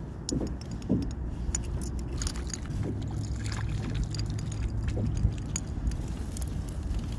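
Steady low rumble of wind and water around a fishing kayak, with scattered small clicks and knocks from a spinning rod and reel being handled.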